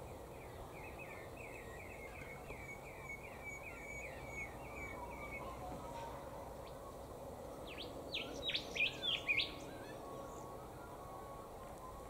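Wild birds calling over a steady background noise. A quick run of repeated chirping notes lasts about five seconds, then a few loud, sharp calls come about eight to nine and a half seconds in.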